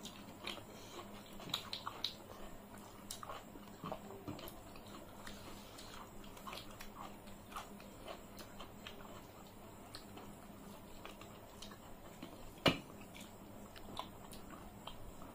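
Two people eating rice and curry by hand: close chewing and mouth sounds, soft squishes of rice being mixed by fingers, and scattered light clicks on the plates. One sharper click stands out about three-quarters of the way through.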